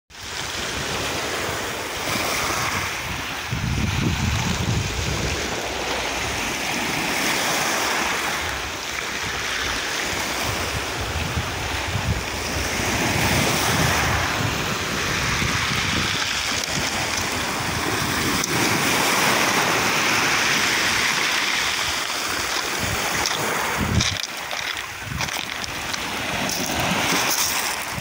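Small sea waves breaking over rocks and washing up a pebble beach, the surf swelling and easing every few seconds.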